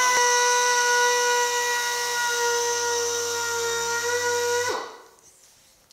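Small air polisher with a foam pad spinning at speed against a painted moulding strip: a steady high whine over an air hiss. About five seconds in it winds down quickly and stops.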